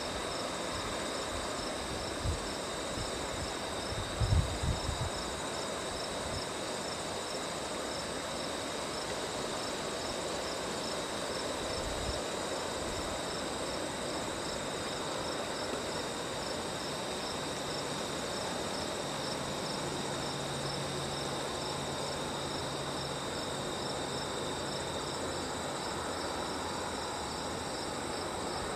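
Crickets chirping steadily in the grass, a high, evenly pulsing trill over a steady background rush. A few low thumps come about four seconds in.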